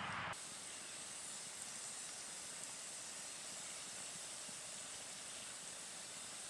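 Log campfire burning with a faint steady hiss and a couple of small pops.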